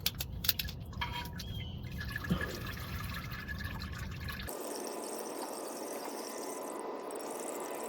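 Engine oil running out of a just-loosened oil filter and trickling into a drain pan, steady, with a few clicks in the first second.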